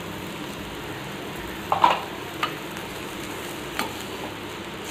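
Onion masala frying in a kadai with a steady sizzle while powdered horse gram is stirred in with a perforated steel ladle. The ladle knocks against the pan a few times, loudest about two seconds in.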